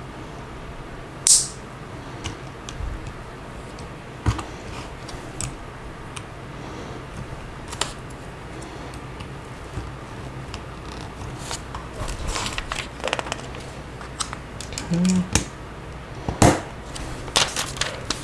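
Plastic LEGO pieces being handled and pressed together: irregular small clicks and clatters, with busier bursts of clicking about two thirds of the way in and near the end, and a short hiss about a second in.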